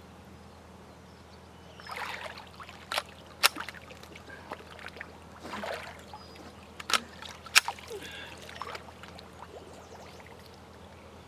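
Water sloshing and splashing in patches as a person moves about in it, with four sharp knocks in two pairs, about half a second apart, one pair near the start and one about midway.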